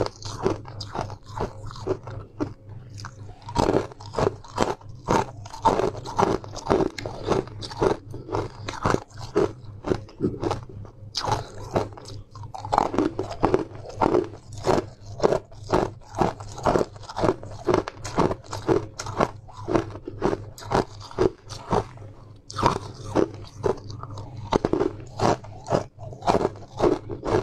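Close-miked biting and chewing of sweet ice frozen with honey: a steady run of crisp crunches, two or three a second.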